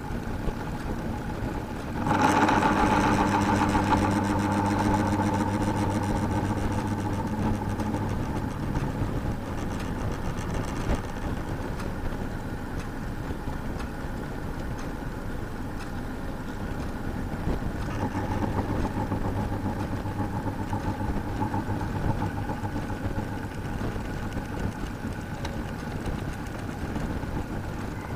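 Electric fan running with a steady motor hum and a rubbing, scraping noise. It grows louder about two seconds in.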